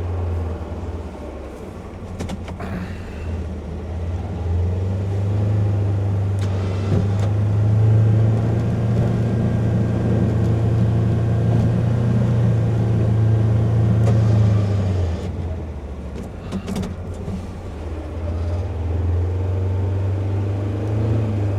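Polaris Ranger XP 1000 UTV's twin-cylinder engine running under load as it pushes heavy wet snow with its front plow, heard from inside the cab. The engine note builds over the first few seconds and holds steady, eases off about fifteen seconds in, then picks up again near the end, with a few brief knocks along the way.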